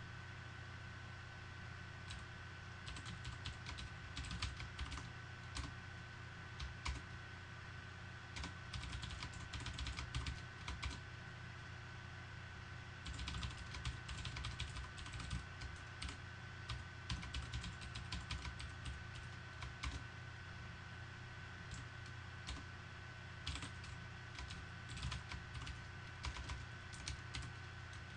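Typing on a computer keyboard: runs of quick key clicks with a couple of short pauses, over a steady faint electrical hum.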